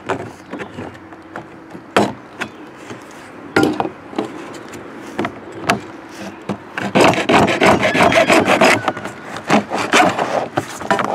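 Hacksaw with a new blade sawing through a hard plastic lid: short scraping strokes and a few knocks at first, then a run of fast back-and-forth strokes for about two seconds from around seven seconds in.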